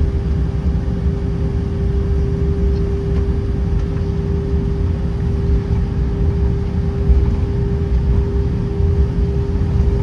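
Cabin noise inside an Airbus A319: a steady held hum over a low, uneven rumble, with no build-up of engine power.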